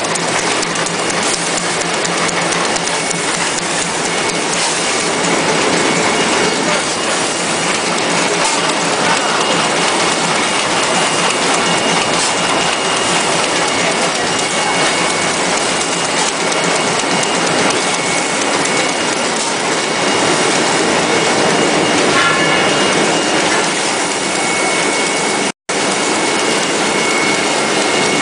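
Facial tissue making machine running: a steady, loud mechanical clatter with faint high steady tones riding on it. The sound cuts out for a split second near the end.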